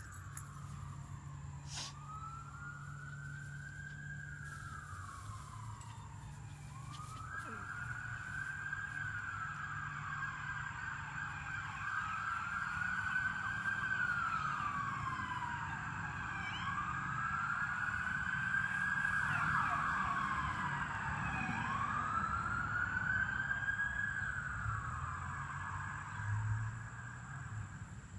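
A siren wailing in slow rising-and-falling sweeps, about one every four seconds, growing louder toward the middle and fading again near the end.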